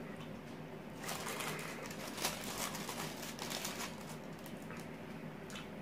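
Close-up eating sounds of chicken wings being chewed: a dense crackle of small crunchy, wet clicks for a few seconds, thinning out toward the end.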